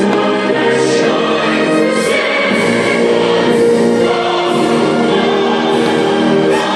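Loud show music with a choir singing, accompanying a fireworks display. Faint crackling bursts, about once a second, sit on top of the music.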